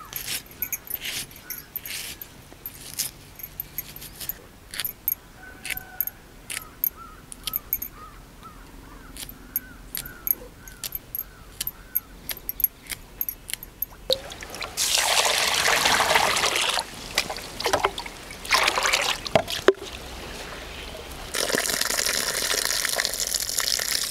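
Green chillies and onions being cut on an iron boti blade, a series of sharp clicks. From about halfway through, water is poured and sloshed in stretches as rice is washed in a pot.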